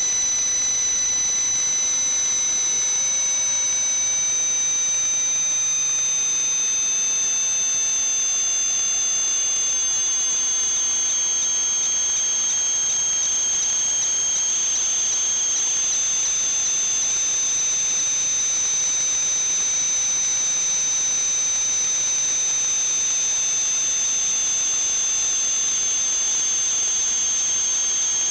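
Steady hiss with a high, thin whine held at one pitch and fainter whistling tones that drift slowly up and down in pitch.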